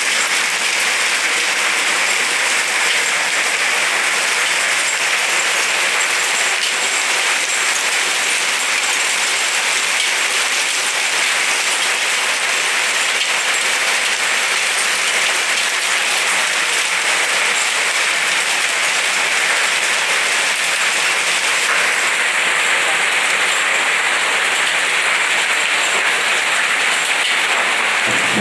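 Heavy hail falling, a dense, steady pelting of hailstones.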